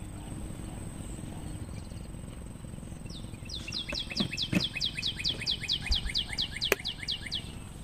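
A bird sings a fast run of some fifteen short notes, each sliding down in pitch, starting about halfway through and lasting about four seconds. A few sharp clicks sound among the notes.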